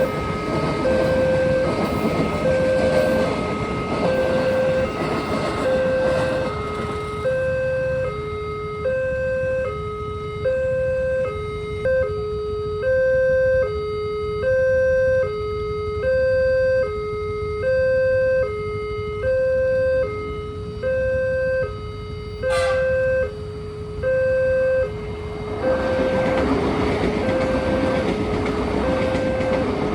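Railway level-crossing warning alarm sounding a steady high-low two-tone pattern, one pair about every second and a half. It plays over the rumble of a passing train, which fades after several seconds and builds again a few seconds before the end. A brief sharp upward sweep is heard about 22 seconds in.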